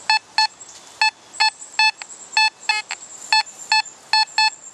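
Fisher F44 metal detector sounding its high target tone as the coil sweeps back and forth over a buried coin: short beeps of one pitch, mostly in quick pairs, about fourteen in all. The high tone and a 62–63 reading mark a dime-range target, which turns out to be a clad dime.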